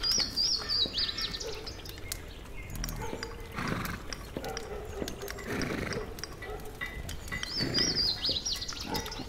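Mixed soundscape of birds chirping in short trilling phrases, about a second in and again near the end, over low animal grunts every couple of seconds and a background of other farmyard sounds.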